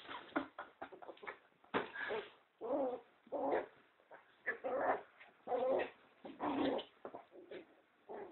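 Two-month-old pinscher puppy growling and whimpering in play, in a run of short bursts.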